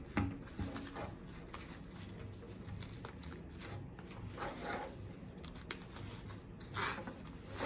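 Faint rustling and scraping of nylon webbing and fabric being handled as a strap is worked through a plate carrier's webbing slots, with a few short louder scrapes.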